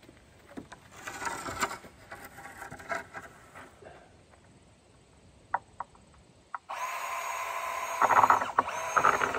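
A lumber brace knocks and scrapes against a wooden post, with a few sharp ticks. About seven seconds in, a cordless drill starts driving a screw into the wood and runs steadily for about two and a half seconds, louder and uneven in its last second before it stops.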